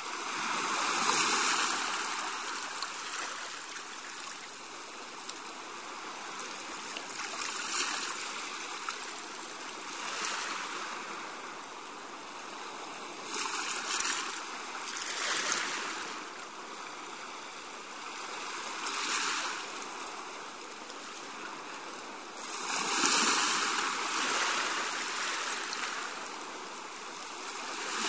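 Sea waves washing in: a steady rush of water that swells and falls back every few seconds. The loudest surges come about a second in and again about three-quarters of the way through.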